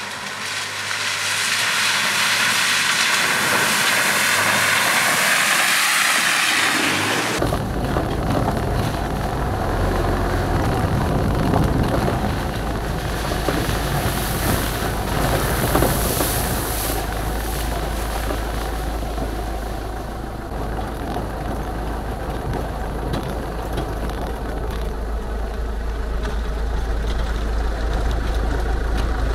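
About seven seconds of an even rushing hiss, which cuts off suddenly. Then the engine of a Hyundai Terracan 4x4 runs steadily through to the end.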